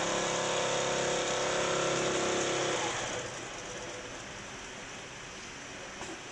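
Filter bag sewing machine running with a steady motor hum, stopping abruptly about three seconds in, after which only a quieter background hiss remains.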